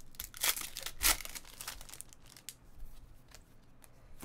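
Crimped foil wrapper of a Bowman baseball card pack being torn open and crinkled, with two sharp rips about half a second and a second in. After that come quieter crinkles and light clicks as the cards are handled.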